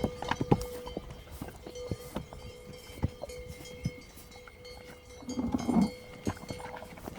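Horses and donkeys at a salt block: scattered soft knocks and clicks from hooves and muzzles, over a faint steady tone. A short, low, rough animal sound a little after five seconds in is the loudest thing.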